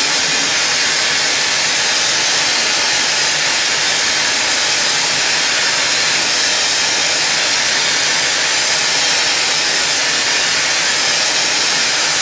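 Hand-held gas-oxygen glassworking torch burning with a steady hiss as its flame heats borosilicate glass turning on a glass lathe.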